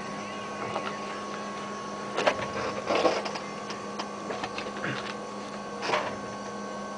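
Steady electrical hum with a constant low tone and a fainter higher one, broken by a few brief knocks and rustles about two, three and six seconds in.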